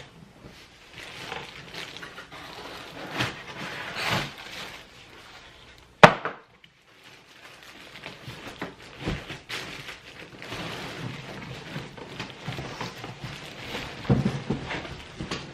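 Packaging handled while stroller parts are unboxed: irregular rustling and scraping of cardboard and wrapping, with scattered knocks and one sharp, loud knock about six seconds in.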